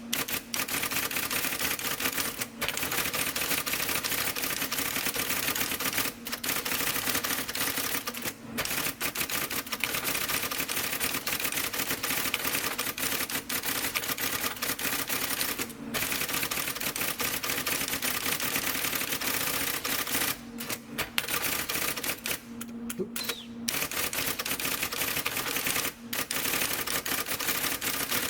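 IBM Correcting Selectric III electric typewriter being typed on at speed: a rapid, continuous clatter of keystrokes and golfball element strikes, broken by brief pauses every few seconds, over the steady hum of its running motor.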